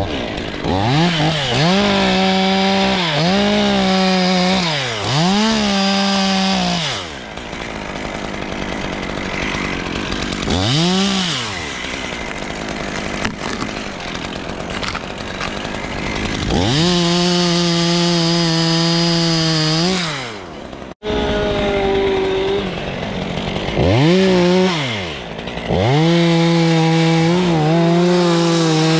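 Stihl 500i two-stroke chainsaw revving up and down in a string of short blips, then running lower with a single rev. Later it is held at full throttle for several seconds at a time as it cuts, with a sudden brief break a little past two thirds of the way.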